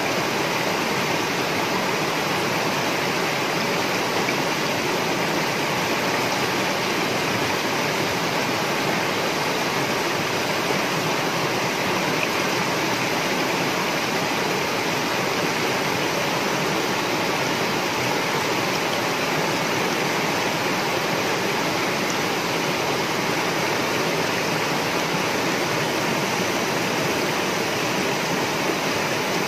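Flowing river water making a steady, even rush without a break.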